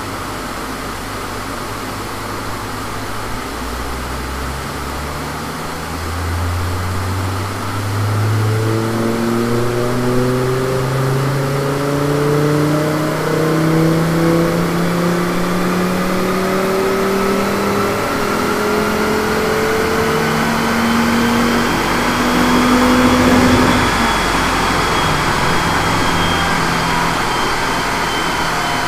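Car engine at full throttle on a rolling-road dynamometer during a power sweep, its pitch climbing steadily for about seventeen seconds with a higher whine rising along with it. Near the end the throttle is lifted and the engine note suddenly drops back as the run ends.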